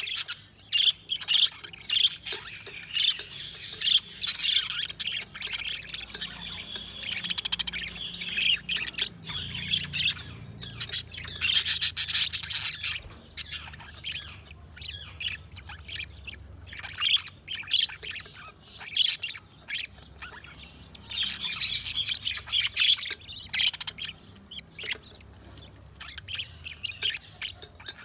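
Budgerigars chirping and chattering continuously in quick short calls, with a louder, harsher burst about twelve seconds in.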